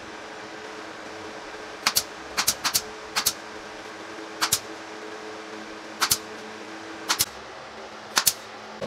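Pneumatic brad nailer driving brads into wood, firing about eight times, each shot a sharp double snap, several in quick succession. A steady low hum runs underneath.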